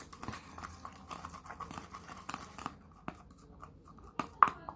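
Freshly activated slime worked by hand, giving irregular sticky crackling and popping clicks. The clicks are thick for the first couple of seconds, then sparser, with a sharper pop near the end.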